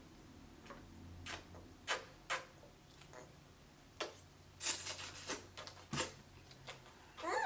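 Mealtime handling noises: scattered light clicks and taps of utensils and food containers, with a short rustle about five seconds in and a faint steady hum beneath.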